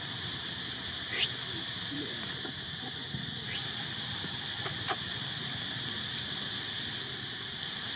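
Steady high-pitched insect chorus buzzing throughout, with a short rising squeak about a second in, a fainter one a little after three seconds, and a couple of sharp clicks near five seconds.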